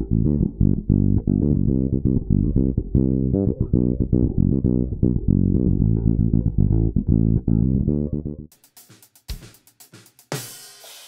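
Electric bass guitar playing a busy line of short notes, bass alone as compressor test material, stopping about eight seconds in. Near the end a drum kit starts, with snare and cymbal hits.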